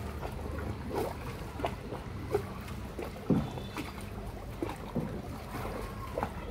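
Tour boat moving slowly along a canal: water lapping and splashing at the hull, with scattered light knocks over a low steady hum. The loudest knock comes a little past the middle.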